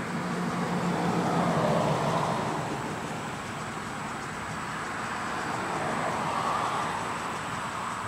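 Passing vehicle noise, swelling and fading twice: once a second or two in, with a low engine hum under it, and again near the end. A faint steady high-pitched whine runs beneath.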